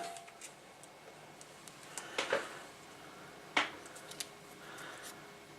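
A few light clicks and taps of small tools and a circuit board being handled on a workbench during soldering, a couple around two seconds in and a sharper one a little past three and a half seconds.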